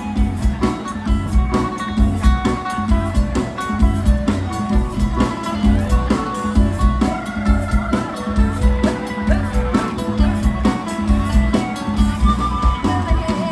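Instrumental passage of mor lam band music: a plucked-string lead melody over bass and a steady drum beat.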